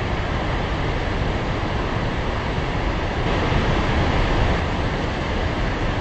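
A large waterfall's water pouring and crashing into a gorge: a steady, even rushing that is strongest at the low end.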